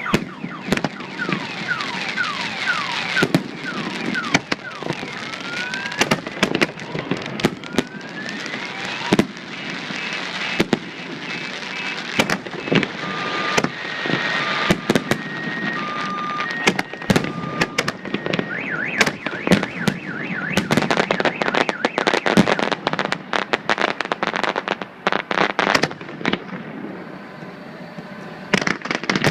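Fireworks display: repeated bangs and crackling, with whistling shells sliding up and down in pitch. A dense run of rapid cracks comes near the end.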